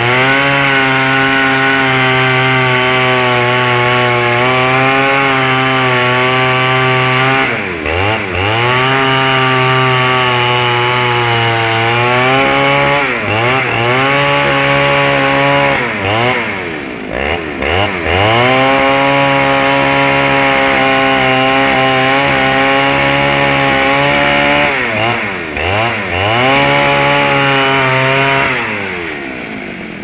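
Two-stroke chainsaw cutting through a log at high revs. Its engine pitch drops and climbs back about five times, falling away most deeply near the end.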